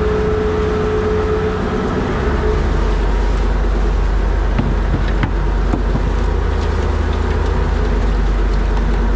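Fishing boat's engine running steadily, heavy at the low end; its note shifts slightly about two seconds in.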